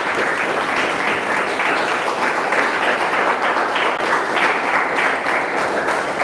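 An audience applauding: many people clapping steadily, dying away just after the end.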